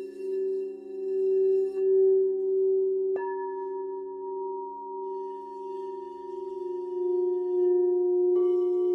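Singing bowls ringing in several sustained tones, their loudness wobbling slowly. Another bowl is struck about three seconds in and again near the end, adding new ringing tones.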